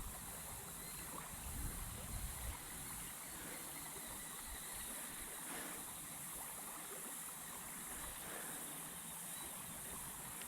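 Faint, steady river ambience around a kayak: a soft wash of moving water, with some low rumble and knocks in the first couple of seconds.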